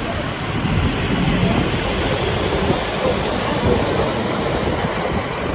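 Steady rush of road noise while driving behind a truck: tyres hissing on a wet road and wind on the microphone, over a low engine rumble.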